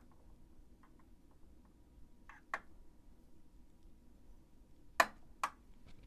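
Metal tweezers making small ticks and clicks against the sewing machine's metal parts while picking out lint, with a sharper click about two and a half seconds in and two louder clicks half a second apart near the end.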